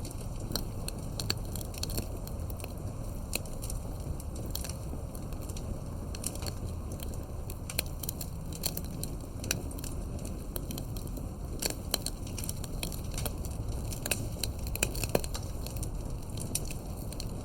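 Campfire crackling, with frequent irregular sharp pops over a low steady rumble of the burning fire; a few louder pops come near the end.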